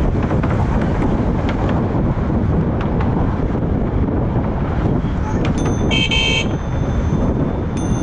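Wind buffeting the helmet camera's microphone while riding, with a short half-second beep of a Loud Bicycle Mini electronic car horn about six seconds in. High, thin ringing tones start just before the beep and again near the end.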